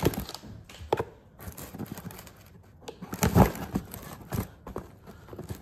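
A parcel being picked up and handled on a counter: scattered knocks, taps and light rustling of its packaging, with a louder bump about three and a half seconds in.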